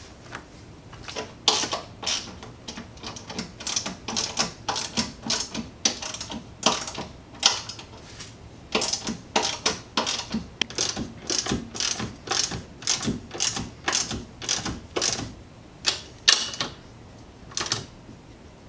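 Hand ratchet wrench clicking in quick repeated strokes as the nuts of a strut tower brace are run down onto the strut tower studs. The clicking starts about a second in and goes on in short runs with brief pauses.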